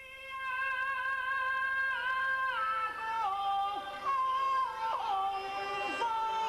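Chinese opera singing: one high voice holding long notes that step down and back up in pitch, with short slides between them.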